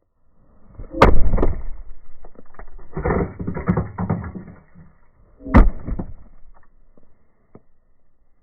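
Converse safety boot stomping down hard twice on asphalt, about a second in and again near the middle, with crunching and scraping underfoot between the stomps as something is crushed and ground under the sole.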